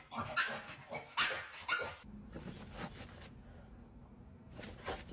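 Dog barking in short bursts: several in quick succession over the first two seconds, then quieter, with one more bark near the end.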